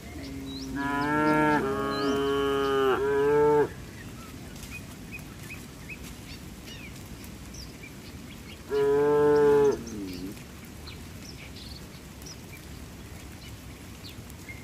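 Cattle mooing twice: a long moo of about three seconds that shifts in pitch partway through, then a shorter moo of about a second and a half near the middle.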